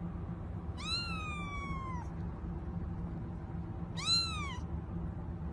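Kitten meowing twice: a long high call about a second in that slides down in pitch, then a short rising-and-falling meow near the end, over a steady low hum.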